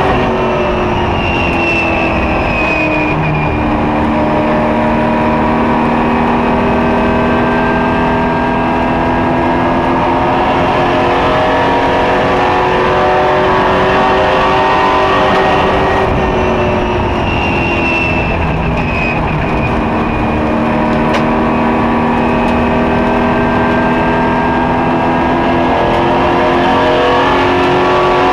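Ethanol-fuelled super truck's racing engine at speed, heard from inside the cab over road noise. Its note drops twice, a couple of seconds in and again about halfway, then climbs back each time as the truck drives out of the turns.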